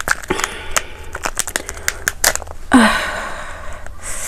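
Crisp crackling and clicking of the Jolo Chip's plastic packet being handled and opened by hand, with a louder rush of crinkling and tearing about two-thirds of the way in.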